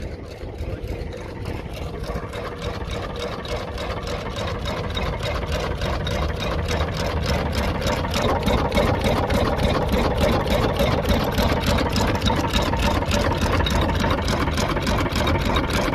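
A car engine idling with a rapid, even exhaust pulse, getting louder over the first half and then running steadily.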